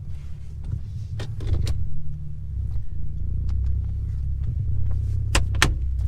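Infiniti G37's V6 idling warm, with a steady low rumble. Several sharp clicks and knocks sound over it, the loudest two close together near the end.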